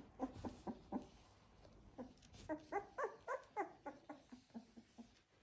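Sixteen-day-old Labrador puppies squeaking and whimpering in short, rapid calls. A brief lull about a second in, then a run of higher squeals that rise and fall in pitch around the middle, tapering to lower, shorter squeaks near the end.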